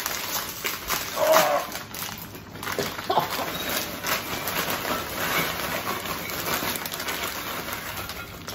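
Plastic chip bags crinkling as they are opened and handled, and crunchy chips pouring from the bags into glass bowls: a dense rustling crackle.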